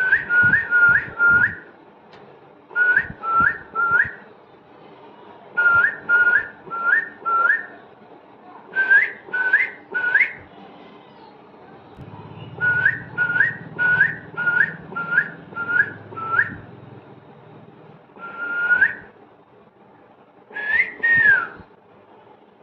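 Pet parrot whistling short, upward-flicking notes in quick runs of three to seven, followed near the end by a longer whistle and then a note that rises and falls.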